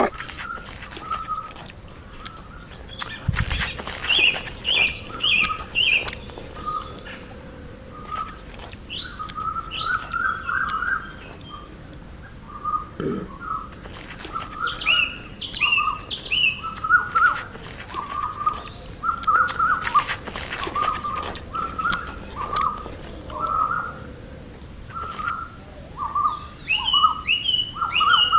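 Small birds chirping: short chirps repeated all through, with quick runs of higher, faster chirps now and then.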